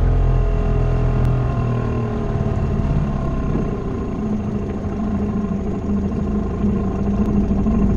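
Boat outboard motor running steadily. Its deep low hum drops away about a second and a half in, and a steadier, higher hum settles in from about four seconds.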